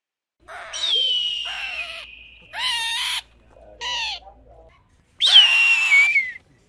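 An eagle screaming: two long, hoarse calls that fall in pitch, about a second in and again near the end, with two shorter calls between them.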